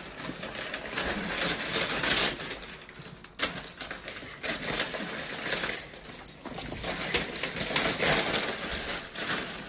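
Paper wrapping crinkling, rustling and tearing in uneven rustles as a small pet thrashes about inside it, with a sharper crackle about three and a half seconds in.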